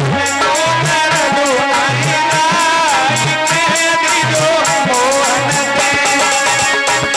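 Instrumental interlude of a live devotional bhajan: a melody instrument playing a line that bends up and down in pitch over a steady hand-drum beat and percussion.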